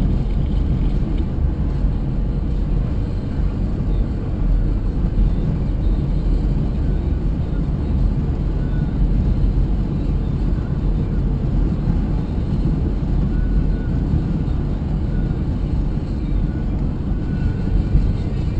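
Car driving along a highway: steady tyre and engine noise, a low, even rumble.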